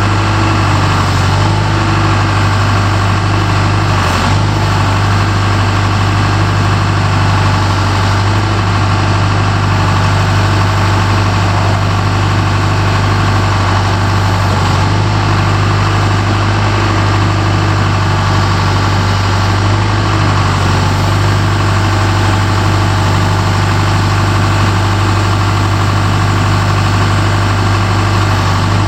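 John Deere 310G backhoe loader's diesel engine idling steadily.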